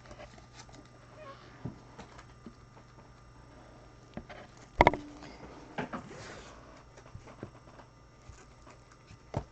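Light clicks and rustles of trading cards and their plastic holders being handled on a table, with one sharp knock about five seconds in and a smaller one near the end.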